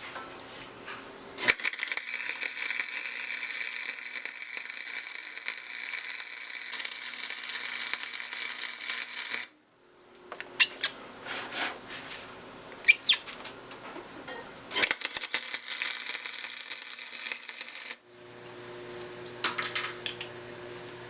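Flux-core wire welder laying weld beads in two long runs of steady crackling and sizzling, with sharp metal taps and clinks between them. Near the end a quieter steady hum takes over.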